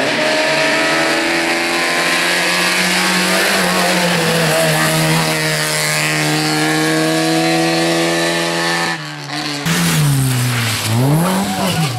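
Rally car engine at high revs, its pitch held steady and then slowly climbing for several seconds as it pulls. About nine seconds in the sound dips briefly, and then a rally engine revs hard with its pitch swooping sharply down and back up.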